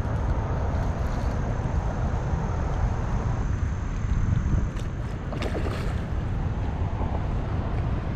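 Wind buffeting the microphone: a steady low rumble, with a few faint clicks about halfway through.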